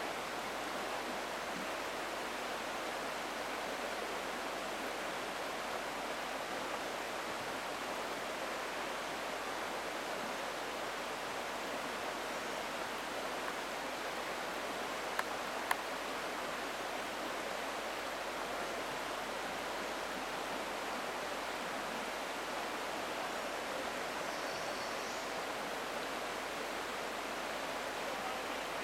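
Shallow river rapids: water rushing steadily over and between rocks in a Class II riffle, with two faint clicks about halfway through.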